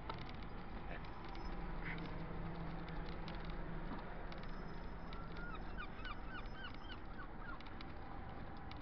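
Low street background noise with a steady hum and scattered handling clicks from clothing brushing the phone. About five seconds in, a bird gives a quick run of about eight short calls, roughly four a second.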